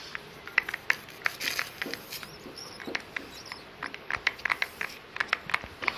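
Slime glue being stirred in a bowl with a utensil: quick, irregular clicks and taps of the utensil against the bowl, several a second, with sticky stirring sounds.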